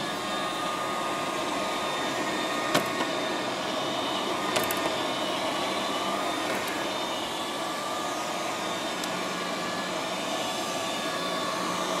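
Liectroux B6009 robot vacuum cleaner running on carpet: the steady whirr of its suction fan and brushes, with a faint steady whine in it. Two brief clicks are heard, about three and four and a half seconds in.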